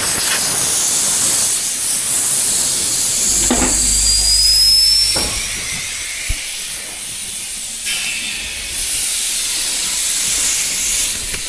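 Air hissing out of a car tyre through the open valve stem with the valve core removed, deflating the tyre. A thin whistle rises briefly about four seconds in, and the hiss eases around six seconds before picking up again.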